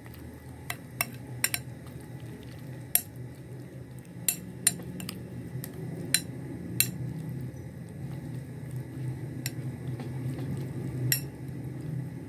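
A spoon clinking and scraping against a glass bowl while stirring a wet, mayonnaise-coated shredded vegetable filling: about a dozen irregular sharp clinks over a low, steady hum.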